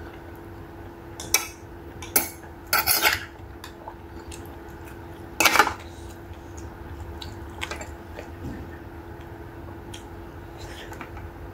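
Metal spoon clinking and scraping against dishes several times, the loudest about five and a half seconds in, followed by faint soft clicks of eating by hand.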